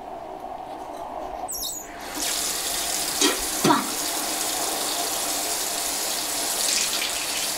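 Bathroom sink faucet turned on about two seconds in and running steadily into the basin, with two brief louder sounds a second or so later.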